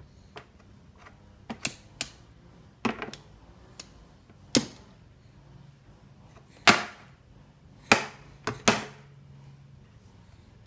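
A baby banging on the hard plastic tray of an activity-center seat: a run of about ten irregular sharp knocks, some in quick pairs, several with a short ring after.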